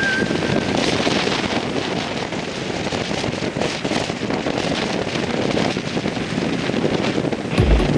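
Wind buffeting the microphone, with water rushing, as a windsurfer sails through waves.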